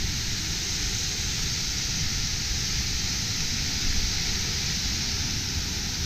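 Steady rushing of a waterfall and cascade, with an uneven low rumble underneath.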